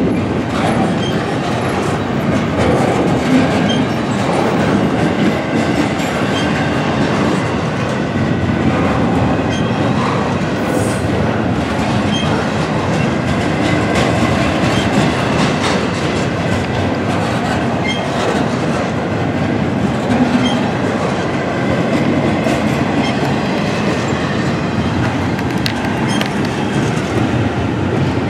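Double-stack intermodal container well cars rolling past, steel wheels clicking over the rail joints in a steady, continuous run.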